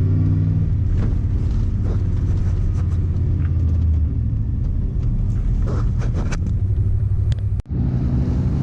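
Truck driving, heard from inside the cab: a steady low engine drone and road rumble with small rattles and clicks. The engine's tone drops about four seconds in, and the sound breaks off briefly near the end.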